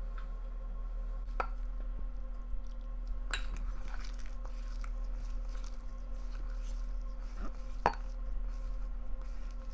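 Hands kneading rice-flour dough in a stainless steel bowl, with three sharp clinks against the steel bowl, over a steady low hum.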